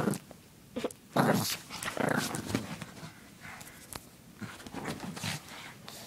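Black pug puppy growling and grunting in a string of short bursts, the loudest about a second in.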